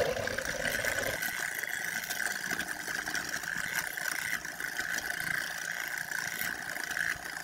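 Electric hand mixer running, its beaters whirring through brownie batter as eggs are beaten in; a steady whine.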